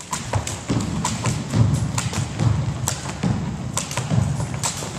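Jump ropes slapping and feet landing on a wooden gym floor as several pairs jump rope, a quick, irregular run of low thuds and sharp slaps.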